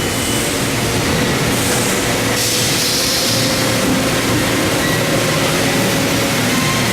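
Steady mechanical hum and hiss of a hydraulic ironworker running idle between strokes, with no punching or shearing impacts. A brief extra hiss comes in about two and a half seconds in.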